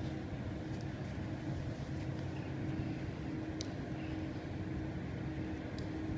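A steady low mechanical hum with a faint tone that comes and goes, and a few light clicks, about a second in, near the middle and near the end.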